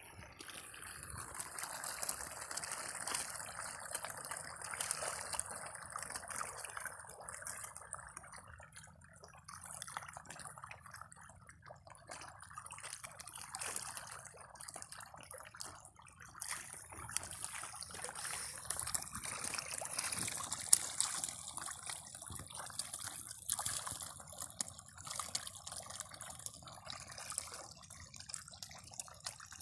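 A dense school of red tilapia splashing and churning at the water surface: a continuous watery sloshing full of small slaps and drips.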